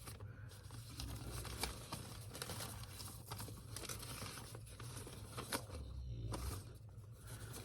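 Faint rustling and crinkling of packing materials being handled, with scattered light clicks and taps.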